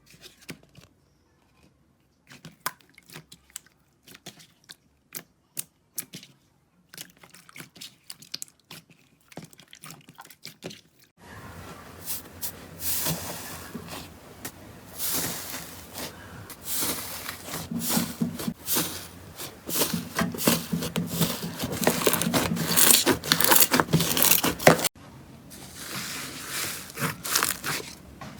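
Slime being pressed and stretched by hand. For the first ten seconds or so there are sparse, sharp sticky pops and clicks. From about eleven seconds in comes a dense, loud crackling and crunching, which cuts out near the end and gives way to a quieter crackle.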